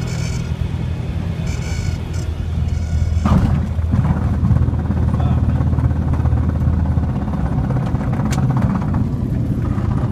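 Cockpit sound of a Cessna 172R landing: the engine drones steadily at low power while the stall warning horn sounds in three short high-pitched bursts during the flare. About three seconds in, the main wheels touch down with a thump, followed by the rumble of the tyres rolling along the runway.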